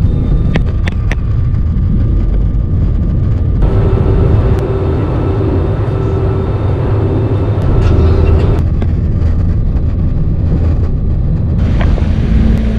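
Steady low rumble of an airliner cabin heard from inside the plane, spread over several cut-together clips, with a few light clicks and knocks.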